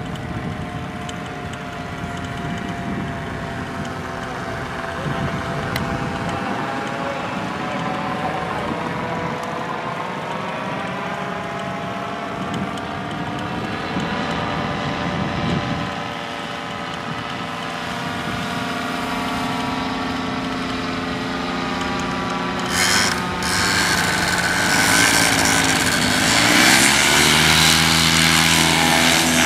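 Paramotor engine and propeller running at a low throttle with a wavering pitch. About 23 seconds in it is opened up to full throttle for the take-off run, much louder, with a rush of propeller noise.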